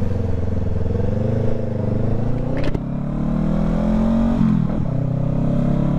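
Honda CBR500R's parallel-twin engine ridden at low speed, its pitch rising and falling as the throttle opens and closes. A sharp click comes a little before halfway, and the engine drops back briefly afterwards.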